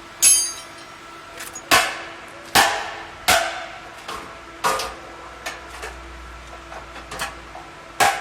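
A hammer strikes sheet metal in irregular blows: about six loud strikes with lighter taps between them, the first one ringing.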